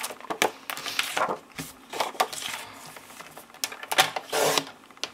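White cardstock being shuffled and slid into place on a Stampin' Up paper trimmer, with a few light knocks and rustles. Near the end comes a short scraping stroke as the trimmer's sliding blade is drawn through the card.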